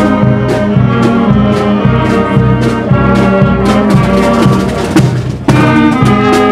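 Marching wind band playing on the move: clarinets, saxophones and brass over a steady bass drum beat of about two strokes a second. The music turns suddenly louder about five and a half seconds in.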